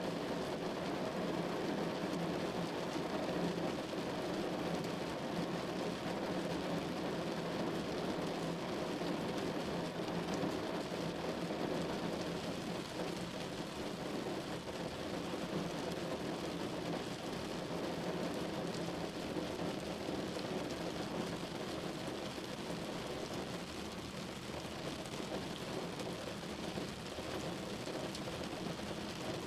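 Rain falling steadily on a window: a dense, even patter with a full, low body and no break or change.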